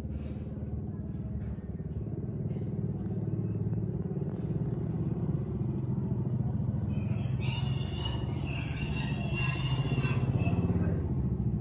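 An engine running steadily with a low, even rumble that grows slowly louder. A hissing sound with a high whine joins it from about seven and a half seconds in and fades near the end.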